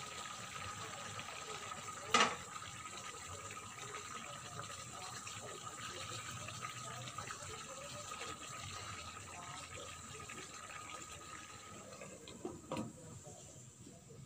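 Chicken in an oyster-sauce and Sprite sauce simmering in an uncovered pan, a steady bubbling hiss, with a sharp metal clank about two seconds in. The hiss fades near the end, just after a couple of light knocks as the pan lid goes back on.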